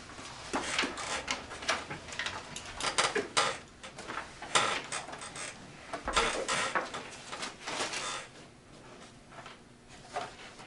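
Sheets of paper rustling and pages being turned and shuffled, a quick run of crisp handling noises, with a low thump on the table about six seconds in.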